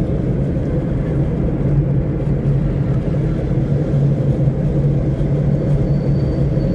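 Car driving along, heard from inside the cabin: a steady low drone of engine and road noise.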